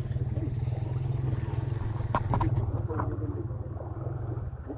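A steady low rumble, with a few sharp clicks a little after two seconds in.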